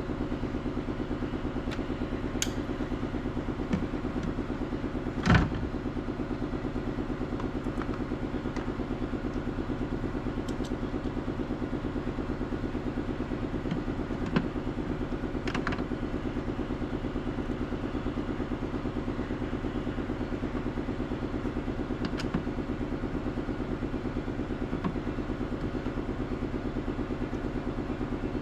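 An engine idling steadily with a fast, even pulse, broken by a few light clicks and one louder knock about five seconds in.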